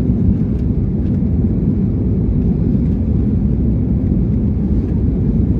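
Steady low noise of an airliner's jet engines and rushing air.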